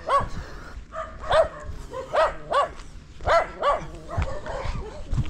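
Dogs barking: a string of short barks, several coming in quick pairs, spread across a few seconds.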